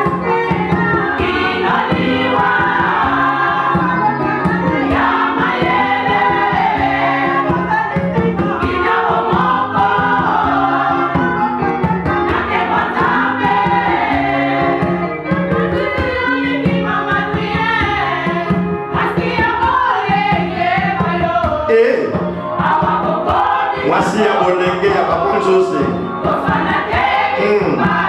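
Women's gospel choir singing together, with a steady low bass line underneath.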